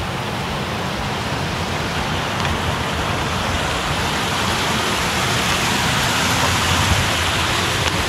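Steady rushing of Sathodi Falls' water pouring over rock, growing slightly louder.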